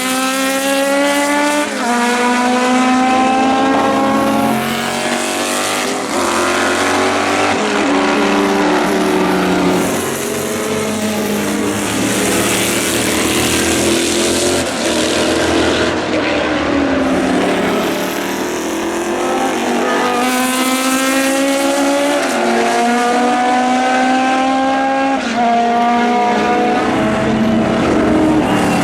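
Historic single-seater racing car engines at full throttle, climbing in pitch through the gears. Each run is broken by quick upshifts that drop the note, and the cars pass one after another.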